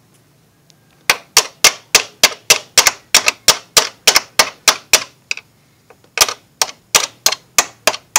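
Metal being struck in two runs of sharp, evenly spaced taps, about three or four a second, with a pause of about a second in the middle: a hammer knocking a worn part out of a Fiat Palio's door fitting.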